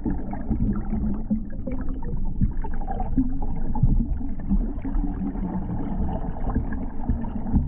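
Muffled underwater sound: a steady low rumble with gurgling and faint crackles as the water moves past.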